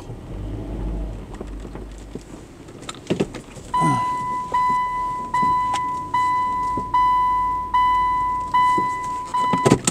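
A car's in-cabin reverse warning chime beeping steadily, about eight beeps a little under a second apart, starting about four seconds in, as the car is put into reverse to turn around. Before it, a low engine and cabin rumble.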